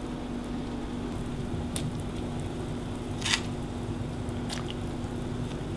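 Light clicks and knocks over a steady low hum as the lid comes off a speckled enamel stockpot and raw shrimp are dropped into the liquid. The loudest click comes about three seconds in.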